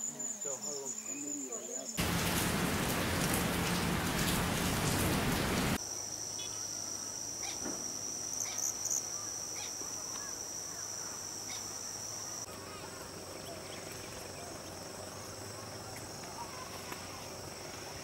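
Insects trilling steadily at a high pitch, broken about two seconds in by a loud rushing hiss that lasts about four seconds and stops abruptly.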